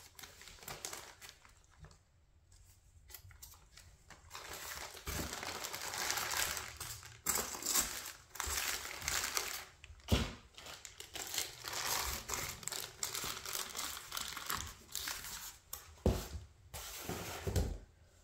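Packaging crinkling and rustling as it is handled, quiet at first, then steady crackling from about four seconds in with short pauses and a couple of knocks.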